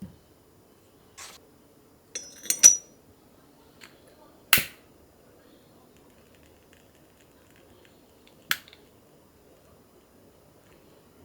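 Unboxing handling of a keyboard's packaging: a short rustle, then a quick cluster of clicks with a brief high squeak, a single sharp knock, the loudest sound, about four and a half seconds in, and one last click near the end, against a quiet room.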